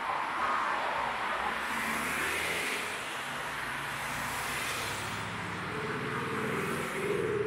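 Road traffic: cars passing with engines running, one engine's pitch rising near the end as it speeds up.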